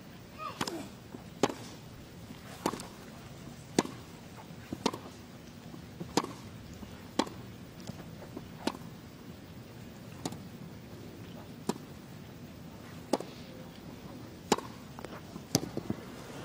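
Tennis ball struck back and forth with rackets in a long rally: a sharp pop about every second or so, a dozen or more strokes.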